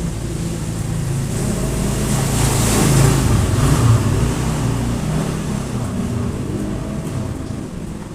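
A motor vehicle passing on a wet road. Its engine hum and tyre hiss swell to a peak about three seconds in, then fade away.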